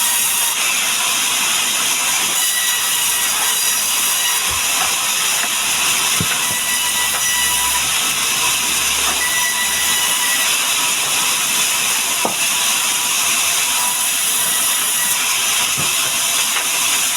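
Sawmill saw running: a loud, steady high-pitched hiss, with a few faint knocks.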